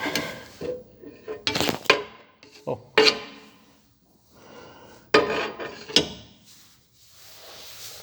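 Metal wrenches scraping and clanking against the car's rear axle parts as they are levered hard to force a part into place. There are several separate bursts of scraping and knocking, about a second or two apart.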